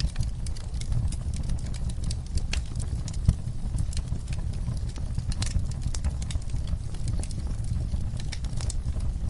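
Wood fire crackling in a fireplace: irregular sharp pops and snaps over a steady low rumble of the flames, with one louder pop about three seconds in.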